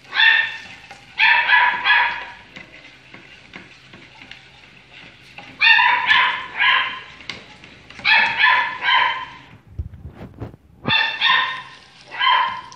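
A small dog barking in quick runs of high-pitched yaps, two to four at a time, with pauses of a second or two between runs.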